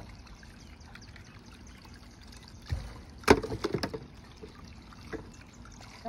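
Garden-hose water trickling faintly over ice on a frozen air-conditioner refrigerant line, thawing it. About three seconds in, a sharp crack followed by a short clatter of smaller knocks as a chunk of ice is broken off.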